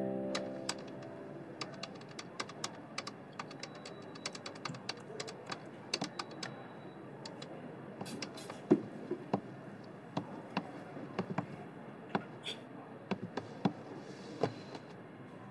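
Typing on a laptop keyboard: quick, irregular key clicks, with a couple of louder knocks about nine seconds in.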